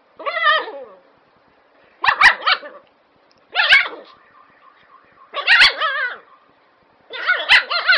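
A drugged dog giving five long, wavering barks, one about every one and a half seconds.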